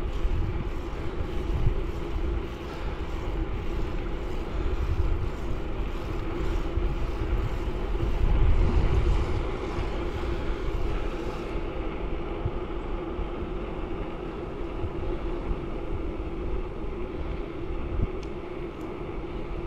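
Wind rushing over an action camera's microphone on a moving Electra Townie 7D bicycle, with tyres rolling on asphalt and a steady low hum underneath. The wind gusts loudest about eight seconds in.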